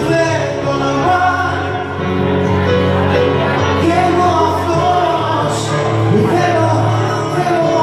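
Male singer singing a song live into a handheld microphone over instrumental backing with sustained bass notes, amplified through a small PA.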